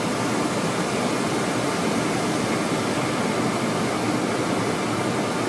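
Steady rushing cockpit noise of a Boeing 727-200 on final approach: airflow over the flight deck mixed with engine noise, even in level throughout.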